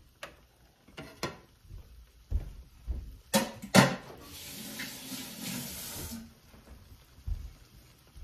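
Off-camera kitchen handling: a few light clicks and knocks, two sharp knocks about three and a half seconds in, then a water tap running for about two seconds before it is shut off.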